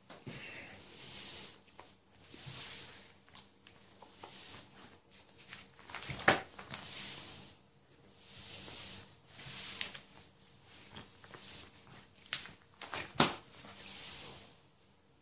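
Plastic sleeve pages of a ring binder being turned one after another, a soft rustling swish every couple of seconds. Two short sharp clicks stand out, one about halfway through and one near the end.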